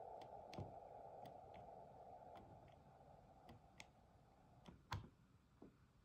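Faint receiver hiss from the Elecraft KX2's speaker, held to a narrow band by its filter, fading and dropping out about five seconds in as its gain is reduced. Several soft clicks of the control box's momentary push-button switches are heard, the loudest just before five seconds.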